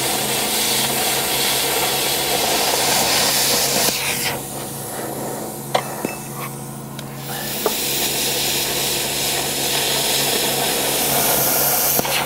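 Hypertherm Powermax30 AIR plasma cutter cutting steel plate: a loud, steady hiss from the arc and air jet. The hiss stops about four seconds in, leaving a few small clicks, and starts again about three seconds later.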